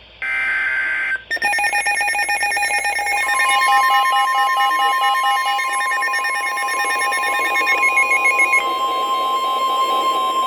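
Emergency Alert System tones: a one-second digital data burst of two steady high tones, then, from about a second in, a loud electronic attention alarm of several steady tones layered together, one mid-pitched tone held through most of it.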